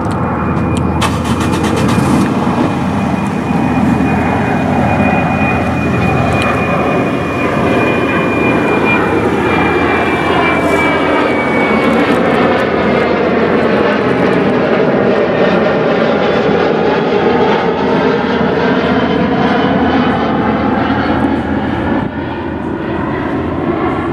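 Boeing 737 airliner's jet engines climbing out low overhead: a loud, steady rush with a high fan whine that sinks slightly in pitch and fades about halfway through as the plane passes over and moves away.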